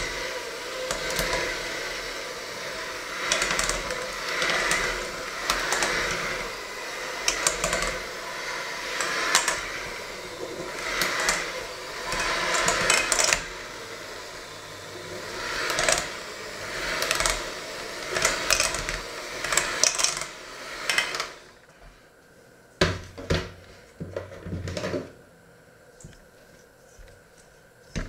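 Electric hand mixer running in a stainless steel bowl of thick dough, its noise swelling and easing every second or two, then cut off about two-thirds of the way through. A few knocks follow.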